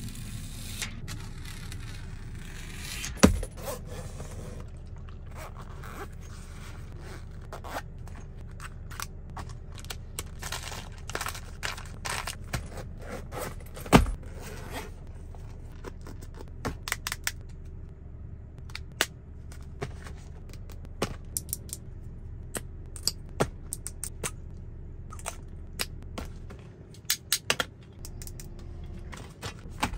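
Restocking sounds: small items, cases and bottles handled close up, with many light clicks, taps and scrapes, over a steady low hum. Two louder thumps stand out, about three seconds in and about fourteen seconds in.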